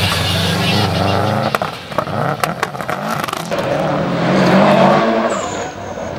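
Race car engine revving hard, its pitch rising and falling as it is driven through a turn, with tyre squeal as the car slides. The loudest stretch comes about four to five seconds in, and a few short high-pitched squeals follow near the end.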